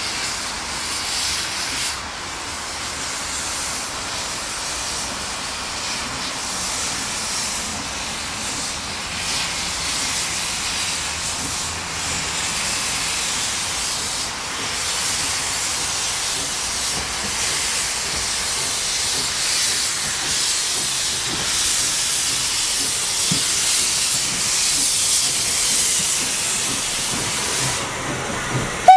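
Steam locomotive hissing steadily as it moves off with its train, steam blowing from the open cylinder drain cocks. The hiss grows louder in the second half as the locomotive comes past close by.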